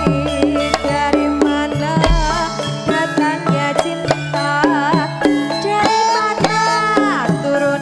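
Live campursari music, Javanese pop played on keyboard and gamelan with hand-drum strokes, under a woman's singing voice with a wavering vibrato.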